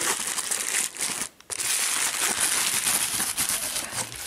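Packaging crinkling and rustling as a camera body is handled and lifted out of its box, with a brief pause about a second and a half in.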